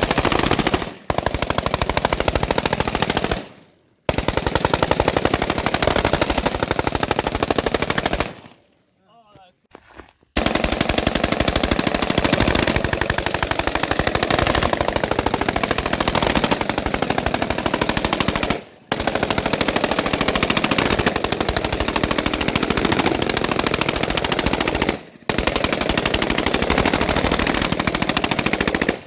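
5.56 mm automatic weapons firing long, nearly unbroken strings of fully automatic fire. The firing stops briefly a few times, with one longer pause of about two seconds.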